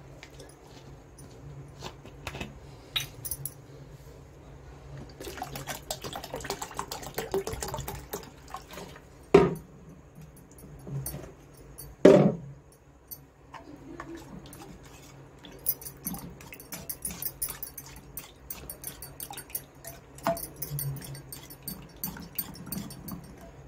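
Wire balloon whisk beating thin yogurt and cucumber raita in a metal bowl: liquid sloshing with the wires clicking against the bowl. There are two louder knocks, about nine and twelve seconds in, and fast steady clicking through the last several seconds.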